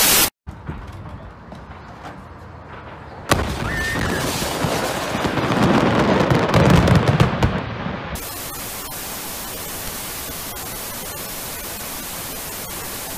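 A large store of fireworks detonating: a sudden blast about three seconds in, then dense crackling and popping over a deep rumble for about five seconds. Short bursts of TV static come at the start, and a steady static hiss with faint ticks runs after the blast.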